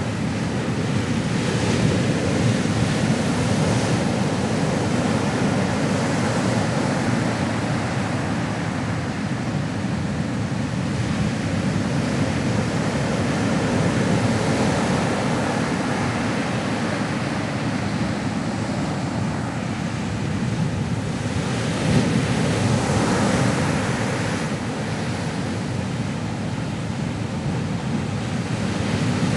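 Ocean waves washing on the shore in a steady wash of surf that swells and ebbs gently, one wave after another.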